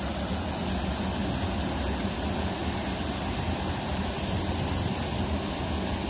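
Water rushing and splashing over rocks in a small cascade, a steady even rush.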